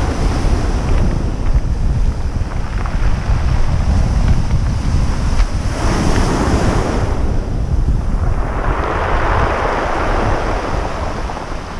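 Strong wind buffeting the microphone over ocean surf breaking on the shore. A wave washes in about six seconds in, and a longer wash of surf swells and fades from about eight and a half to eleven seconds.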